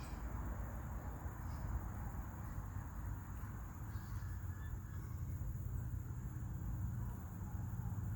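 A sleeping rooster snoring: faint, short, high squeaks with its breaths, about a second and a half and four seconds in, over a steady low rumble.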